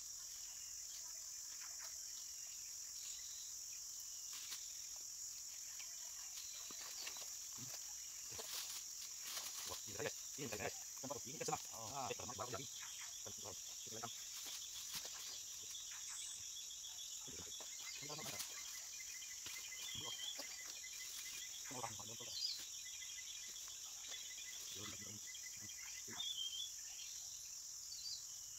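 Steady high-pitched insect chorus, with a few short bird chirps and scattered knocks over it.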